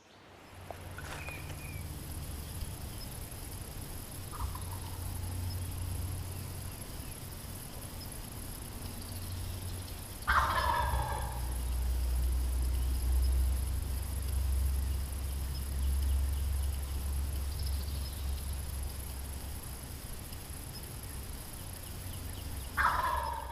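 Wild turkey gobbler gobbling in the woods, answering a hunter's calling: one loud, falling gobble about ten seconds in, another near the end and fainter calls earlier, over a steady low rumble.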